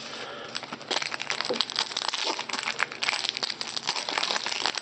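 Foil wrapper of a trading card pack crinkling as it is handled and opened, a dense run of small crackles that starts in earnest about a second in.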